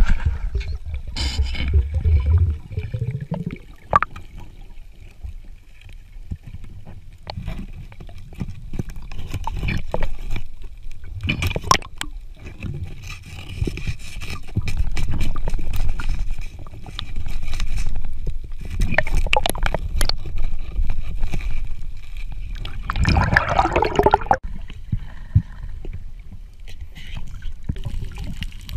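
Water gurgling and bubbling, with scattered short knocks and scrapes and a louder burst of bubbling a little before the end.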